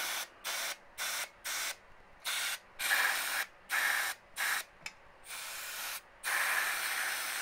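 Aerosol can of carburetor cleaner spraying onto a carbon-coated engine piston top to dissolve the carbon: a quick run of short hissing spurts, then two longer sprays from about five seconds in.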